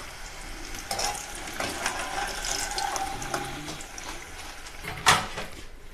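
Hot oil sizzling and crackling around raw banana slices frying in a pan, with small clicks of utensils. A sharp knock about five seconds in.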